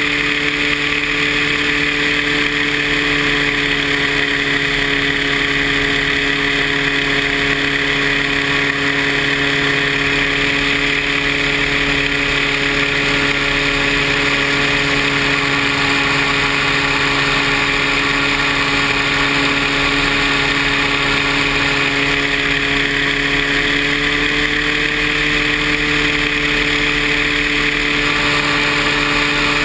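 Paramotor engine and propeller running at a steady throttle, a constant drone over a rushing noise, with the engine pitch stepping up slightly near the end.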